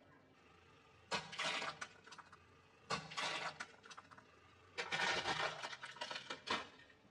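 Car tyre rolling over and crushing small objects such as snack bags and plastic toys, with crunching and cracking in three bursts.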